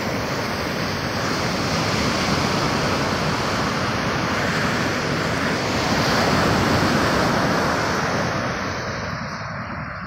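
Pacific Ocean surf breaking and washing up the sand in a continuous rush, swelling about two-thirds of the way through and easing near the end.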